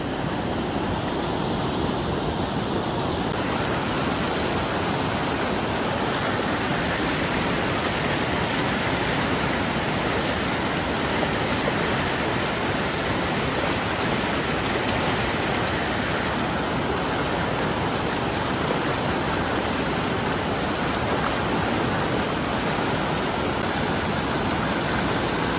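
Rapids of a fast mountain river rushing over boulders: a steady, dense noise of churning white water.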